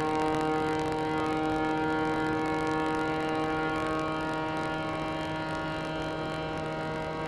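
Wood chipper's engine running at a steady, unchanging pitch, a constant droning hum.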